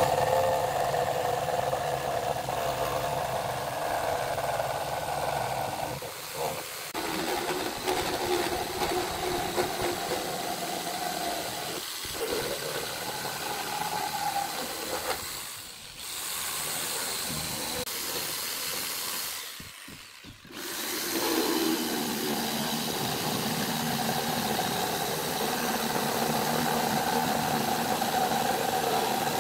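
Makita 4327 electric jigsaw cutting through a thick wooden disc, its motor running and blade sawing steadily, with a few short breaks where the sound drops away.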